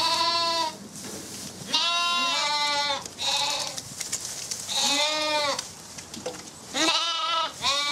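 Zwartbles sheep, lambs and ewes, bleating, with a call every second or two and some calls overlapping.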